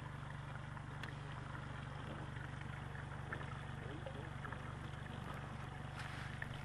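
Boat motor idling, a steady low hum with a few faint ticks over it.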